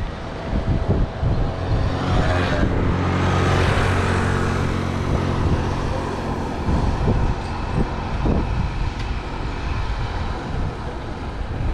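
A motor vehicle passing close by. Its engine hum and tyre noise swell to loudest about three to four seconds in, then fade, over steady street traffic noise.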